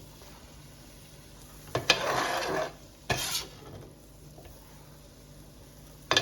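A cooking utensil scraping sautéed onions and bell peppers out of a frying pan, in two strokes about two and three seconds in, the longer one lasting nearly a second, over a low sizzle from the pan.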